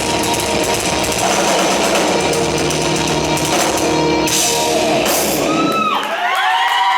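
Heavy rock band with distorted guitars and drums playing the final bars of a song, which stops about six seconds in. A crowd then starts cheering, with voices rising and falling in pitch.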